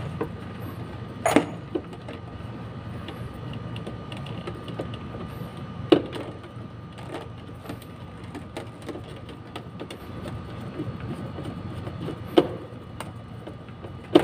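Screwdriver and wire handling on relay-socket terminal screws: three sharp clicks spread through, over a steady low background hum.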